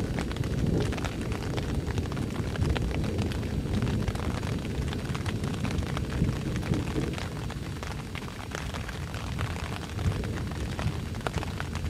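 Wind buffeting the microphone in a steady heavy rumble, with scattered sharp crackles and ticks throughout.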